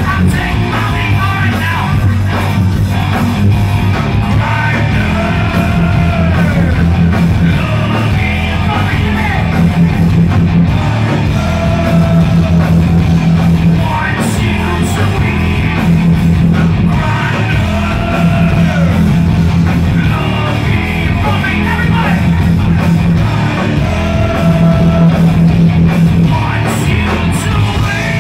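Live heavy metal band playing loud, with distorted electric guitars, bass and drums under a singer's high, yelled vocals, heard from within the audience.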